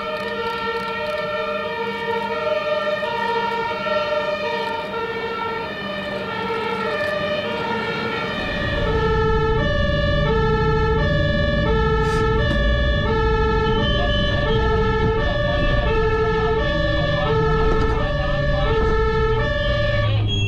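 Several German two-tone emergency-vehicle sirens (Martinshorn) sound at once, each stepping back and forth between a high and a low note. About eight seconds in, one grows louder, with a low engine rumble under it.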